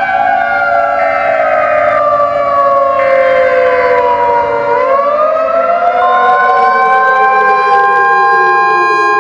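Several outdoor tornado warning sirens wail together, their pitches slowly falling and rising out of step with one another. A steady single tone joins about six seconds in and holds.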